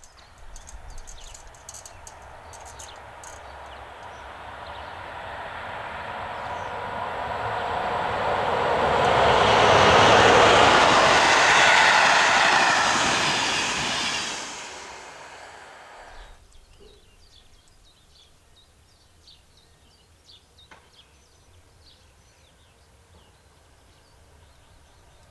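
A Czech Railways (ČD) passenger train of coaches passing on the line, wheels running on the rails. The noise rises steadily as it approaches, is loudest about ten seconds in, then falls away quickly and is gone by about sixteen seconds in.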